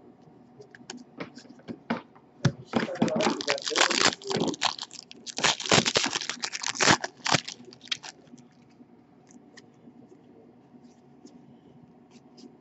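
A foil trading-card pack wrapper torn open and crinkled by hand, a dense crackling that lasts about five seconds, then faint scattered clicks as the cards are handled.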